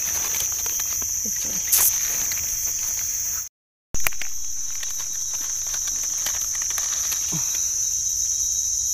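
Steady high-pitched drone of forest insects such as crickets or cicadas, with light rustles and clicks from hands working in dry leaf litter. The sound drops out for about half a second roughly three and a half seconds in.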